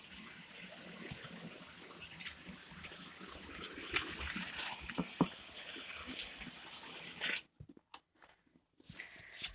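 Small electric model locomotive running along model railway track: a faint steady whirr with a few sharp clicks around the middle. It cuts out about seven and a half seconds in.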